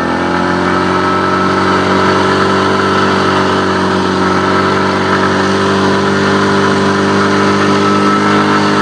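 Small vehicle engine running at steady, raised revs, its pitch held constant.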